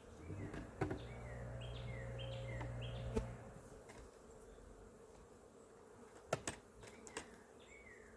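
Honeybees buzzing around an opened beehive, one close steady buzz for the first three seconds or so, with a few sharp knocks of the hive box being lifted off.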